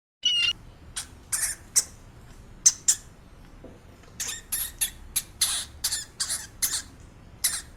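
A small animal making an irregular series of short, high-pitched squeaks and chirps, the first one longer with a falling pitch.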